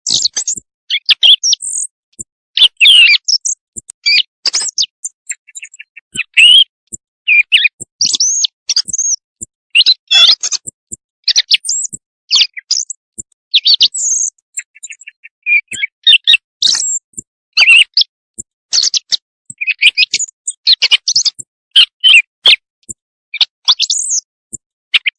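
Recorded quail calls played as a night-time hunting lure: a fast, continuous run of short, high chirps and trills, broken by brief silent gaps.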